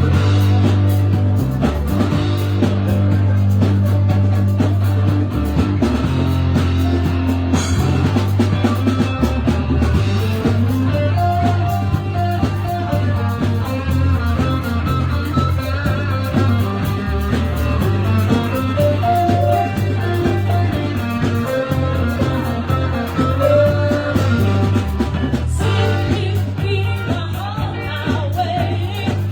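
A live band playing a rock song at full volume, with a steady bass line and a melodic lead line over it.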